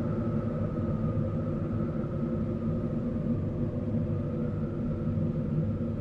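Horror-style spirit wind sound effect: a steady, low rumbling wind drone with a faint whistling tone above it that sinks slowly, fades out midway and returns near the end.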